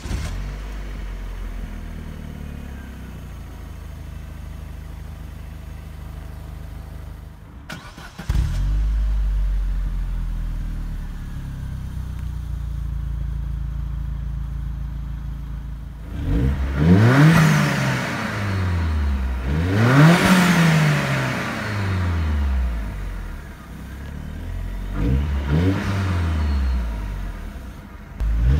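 Opel Astra G Caravan OPC's 2.0-litre four-cylinder petrol engine catching at start-up and settling into a steady idle, first heard inside the cabin and then at the tailpipe. About halfway through come two sharp revs that climb and fall back, then a few shorter throttle blips.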